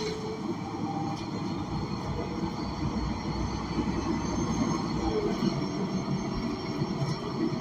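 Steady running noise inside the cabin of a Gillig BRT Plus transit bus: its Cummins Westport L9N natural-gas engine and drivetrain, with a faint steady whine on top.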